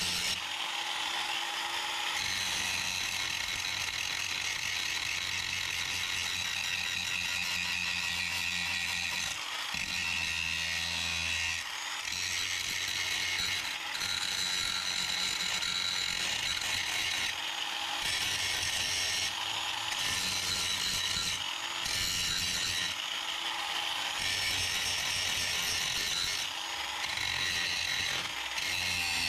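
An angle grinder's disc grinding sheet steel on a car's firewall: a continuous high grinding with a lower motor hum that comes and goes, and several brief dips as the disc eases off the metal.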